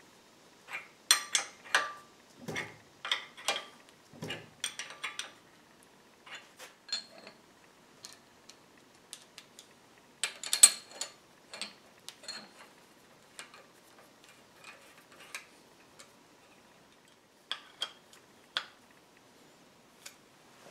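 Irregular metal clicks and clinks of a combination wrench on a nut and steel parts being fitted to a lathe headstock, in short scattered bursts, loudest about halfway through.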